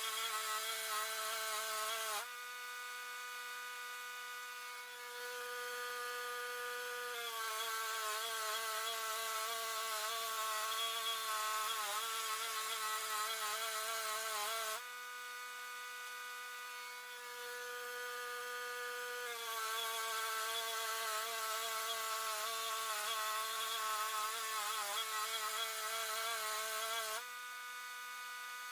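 Wood-Mizer LT10 bandsaw mill running through a black walnut log: a steady motor hum under a louder sawing noise. The sawing drops away twice in the middle and again near the end, leaving a lighter, slightly higher hum, then comes back.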